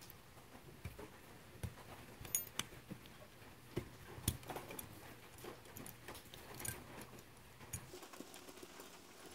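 Faint, scattered small clicks and ticks of the trigger guard being spun and unthreaded by hand from a single-shot shotgun receiver.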